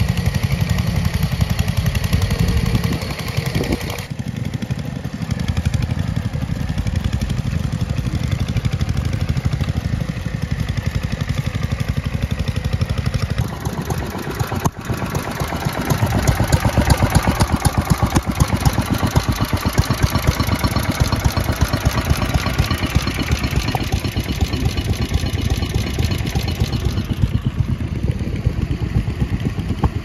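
Small air-cooled engines of vintage two-wheel walking tractors running steadily under load while pulling ploughs through the soil. The engine is loudest about halfway through, heard close up.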